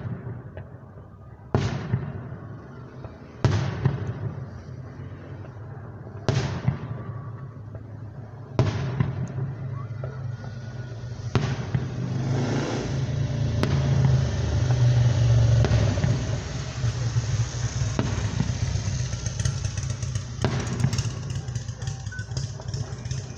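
Fireworks shells bursting overhead: five sharp bangs, each fading away, two to three seconds apart. After that a denser run of shells fills the air with continuous rumbling, and crackling comes in near the end.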